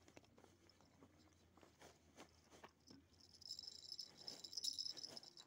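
Faint crickets chirring, a fast high trill that comes up about three and a half seconds in, over quiet scattered clicks and rustles.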